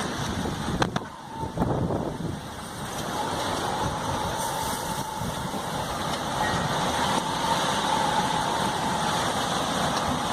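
Storm-force wind blowing steadily and buffeting the microphone, with a couple of knocks about a second in and a faint whistle from about three seconds on.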